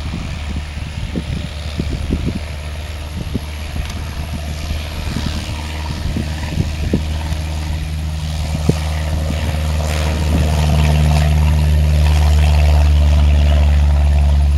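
Cessna 172's engine and propeller at full power on the takeoff roll: a steady droning hum that grows louder about two-thirds of the way through as the plane nears. Scattered short knocks come through the first half.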